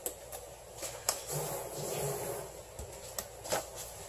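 Paper towels being handled on a wooden cutting board: soft rustling of paper, with a few light taps and clicks.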